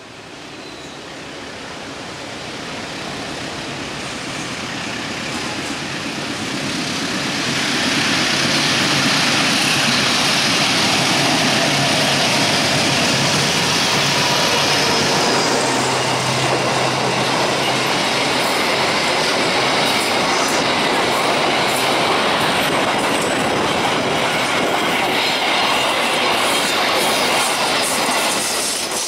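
KAI diesel-electric locomotive hauling a container freight train, approaching and passing at speed. Its engine and wheel noise grow louder over the first eight seconds and then hold steady. Near the end come the rhythmic clatter and rumble of the container wagons' wheels on the rails.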